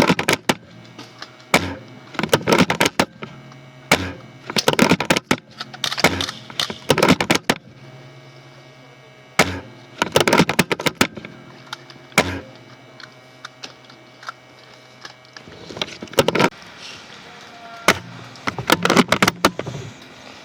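Airsoft game noise: sharp single cracks and several clattering rapid bursts of clicks, the sound of airsoft guns firing and of knocks on the gun, over a low steady hum.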